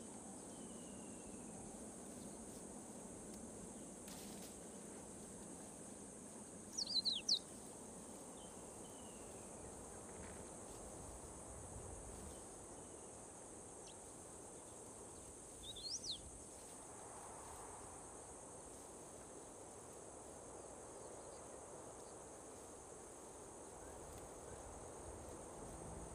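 Steady high-pitched insect drone, with two short bursts of bird chirps about 7 and 16 seconds in.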